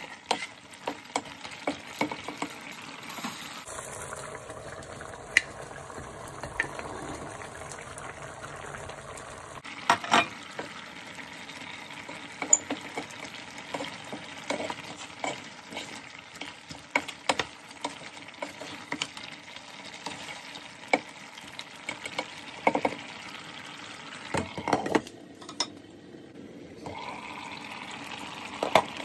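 Wooden spatula stirring mutton curry in a pan, knocking now and then against the pan with sharp, irregular clicks, over the steady sizzle of the cooking curry.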